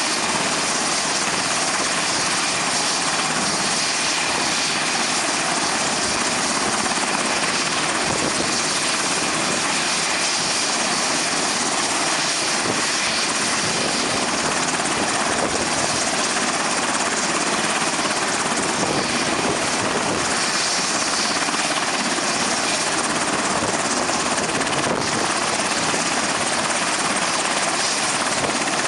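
Black Hawk model helicopter hovering: the steady whir of its small motor and spinning rotor blades.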